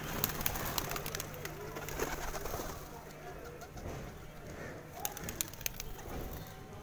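A flock of domestic pigeons cooing as they feed on a concrete floor. Clusters of sharp taps come near the start and again about five seconds in, as beaks peck at the concrete.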